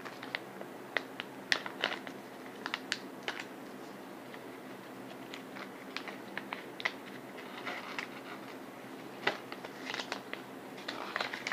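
Scattered crinkles, crackles and clicks of a Hello Kitty blind bag's packaging being opened and its contents handled.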